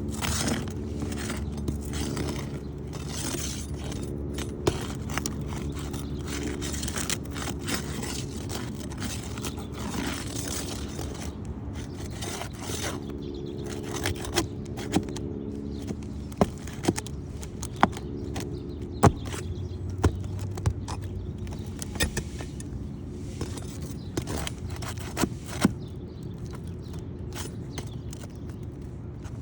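Asphalt roof shingles being worked loose: repeated scraping as their sealant strips are broken and a shingle is pulled out, with scattered sharp clicks and knocks. A steady low mechanical hum runs underneath.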